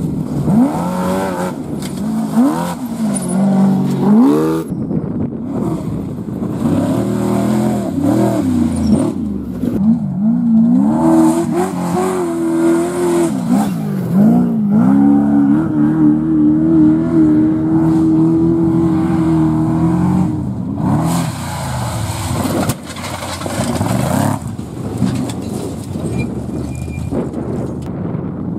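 Off-road race vehicles' engines passing at speed, the engine note rising and falling again and again as the throttle comes on and off. There is a long steady high engine note from about 15 to 20 seconds in.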